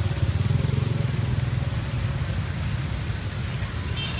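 Steady low motor-like rumble with an even hiss above it, and a brief metallic clink near the end.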